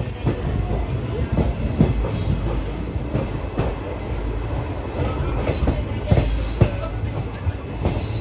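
Passenger train coaches running over the rails, heard close from an open coach doorway: a steady rumble with irregular clicks and knocks as the wheels cross rail joints and points, and a few brief faint wheel squeals.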